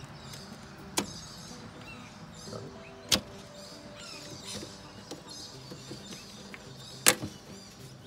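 Sharp plastic clicks as a small screwdriver pries the locking tabs of an RV fridge's plastic outside vent grille and they snap free. There is one click about a second in, another about three seconds in, and a quick double click about seven seconds in.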